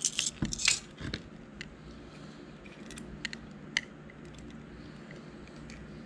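Metal clinks and rattles of a small-engine carburetor being lifted and handled on a workbench, a quick cluster in the first second, then a few light ticks as small parts are fitted by hand.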